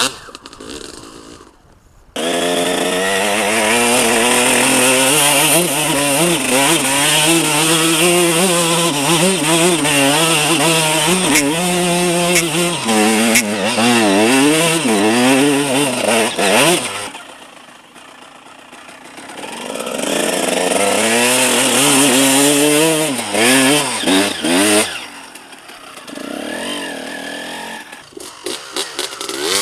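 Enduro dirt bike engine revving up and down as it rides, its pitch rising and falling with the throttle. It comes in suddenly about two seconds in, drops away for a few seconds past the middle, swells again, then fades near the end.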